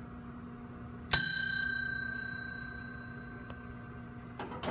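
A single bright bell-like chime, struck once about a second in, ringing on at a clear high pitch and fading slowly over about three seconds, over a faint steady low hum.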